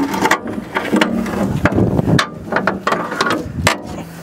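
Irregular clanks, knocks and scrapes on the steel sheet-metal body of a Kobelco SK160LC excavator as a man grips its panels and hauls himself up onto it.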